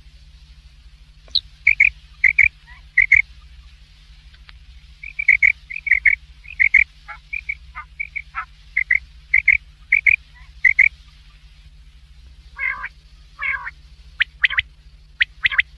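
Quail calling: short, clipped, fairly high notes, given singly and in quick runs of two or three. About three quarters through come two harsher, buzzier notes, then a few sharp quick ones. A low steady hum runs underneath.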